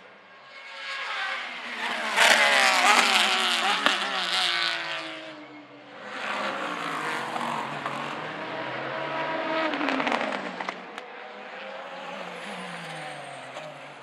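Race cars passing at speed, one after another, each engine note falling in pitch as it goes by. The first pass, about two to five seconds in, is the loudest; a second car follows with a few sharp cracks near its end, and a fainter one trails off near the end.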